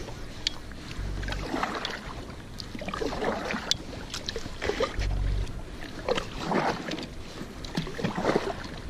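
Kayak paddle strokes: a double-bladed paddle dipping and splashing in the lake water, a stroke about every second or so, with a few short low rumbles.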